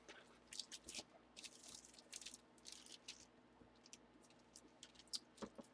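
Faint rustling and light clicking of hard plastic slabbed comic cases being handled and slid against each other.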